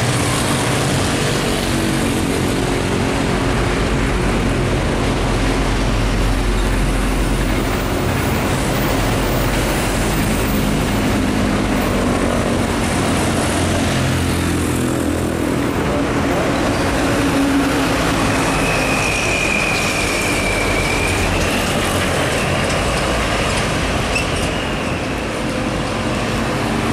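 Diesel trucks passing on a highway while a container freight train rolls by, a steady heavy rumble of engines, wheels and wagons. A brief high whine sounds about two-thirds of the way through.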